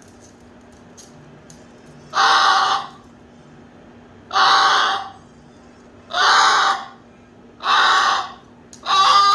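Moluccan cockatoo screeching: five loud screeches, each under a second long, about two seconds apart.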